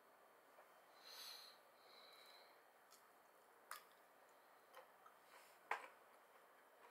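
Faint sounds of edamame being eaten: soft clicks and squishes as the pods are handled and squeezed open at the mouth, with a sharper click near the end. A breath through the nose about a second in.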